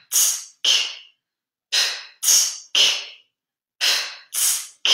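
Sharp, hissing breath pushes driven from the diaphragm, done as a singer's exercise to strengthen it. The short exhales come in quick groups of three about half a second apart, with a pause of about a second between groups.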